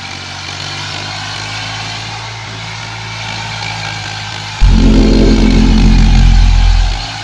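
Eicher 480 tractor's diesel engine running steadily as it pulls a rotavator through wet paddy mud. About two-thirds of the way in, a much louder low rumble starts suddenly, lasts about two and a half seconds, and cuts off.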